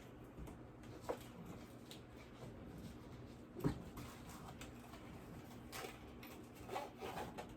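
Faint handling noises: a few light taps and clicks, one about a second in, a slightly louder one near the middle and a small cluster near the end, over quiet room tone.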